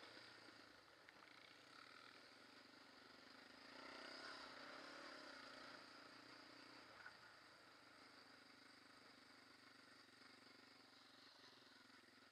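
Quad (ATV) engine running steadily while riding, heard faintly, a little louder for about two seconds some four seconds in.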